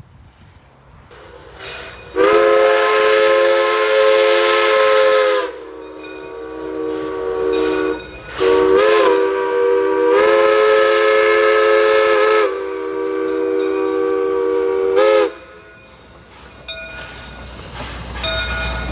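1920 Baldwin steam locomotive's whistle blowing for a grade crossing, a chord of several notes: a long blast, a brief short one, then another long blast that ends with a quick flick in pitch. After it, the locomotive's lower rumble as it reaches the crossing.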